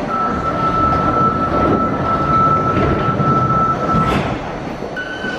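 A door-closing warning tone sounds steadily for about four seconds while the doors of a Sapporo Namboku Line subway train and the platform screen doors shut, over the low rumble of the train standing at the platform. A second, higher tone starts near the end.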